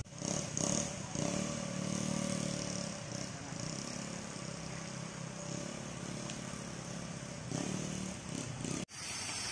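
An engine running steadily at low speed, with faint voices.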